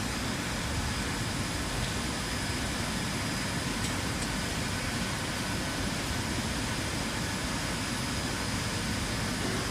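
Two-head roller coating machine for wood panels running steadily: an even mechanical noise with a faint thin high whine held throughout.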